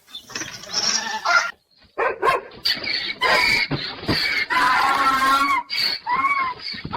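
Animal cries: a run of loud, pitched calls whose pitch bends up and down, coming in several bursts with short gaps between them.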